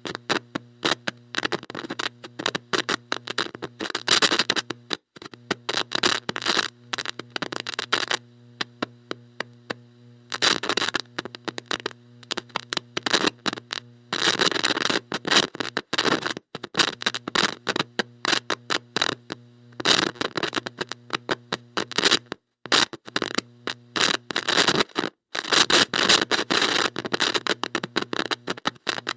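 Bad electrical connection: heavy static crackle and hiss cut in and out irregularly over a steady electrical buzz, with a few brief dropouts to silence.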